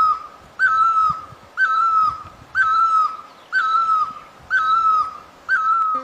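Great barbet calling: a single clear note that rises sharply and then holds, repeated about once a second, six times in a row.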